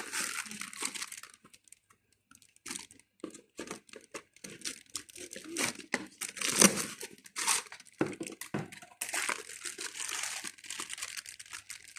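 Toy packaging being handled and opened: irregular crinkling and rustling with tearing sounds, with a short pause about two seconds in.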